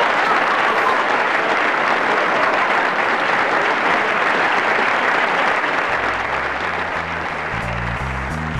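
Audience applauding steadily at the close of a live pantomime. About six seconds in, music with a low, stepping bass line comes in under the clapping.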